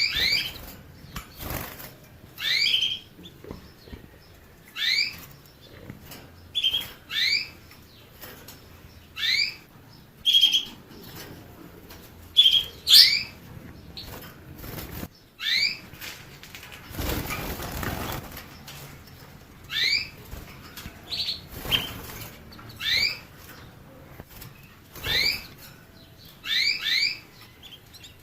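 Canary giving short rising chirp calls, one every second or two, with a brief rustling burst about two-thirds of the way through.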